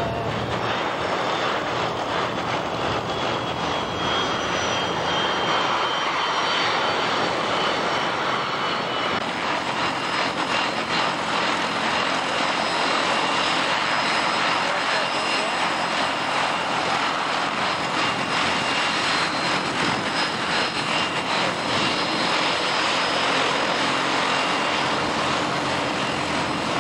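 Aircraft engines running steadily as light aircraft taxi past, with thin high whining tones drifting slowly in pitch above the engine noise.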